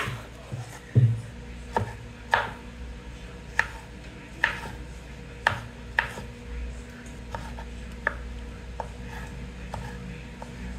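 Irregular sharp knocks and clicks of kitchen utensils during food preparation, about one a second, the loudest about a second in.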